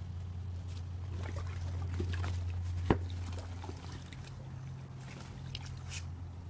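Water splashing and dripping as a puppy climbs into an inflatable kiddie pool floating on a swimming pool, with a sharp knock about three seconds in. A steady low hum runs underneath.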